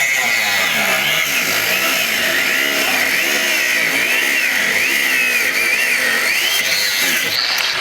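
Angle grinder cutting into metal, its high whine dipping and recovering about once a second as the disc is pressed into the work and eased off.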